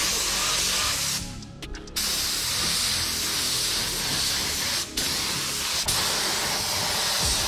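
Compressed-air spray gun hissing as it sprays etch primer onto an engine block. The spray stops for under a second about a second in, then runs again with another brief break about five seconds in.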